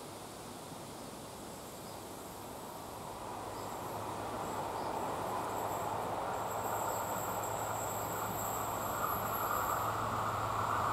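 An approaching diesel passenger train, growing steadily louder from about three seconds in, with a low steady hum under the rising rumble and thin high tones above it.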